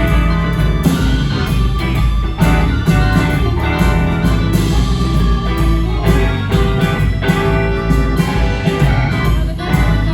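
Rock band playing an instrumental passage, with electric guitar and organ over a steady beat and no singing.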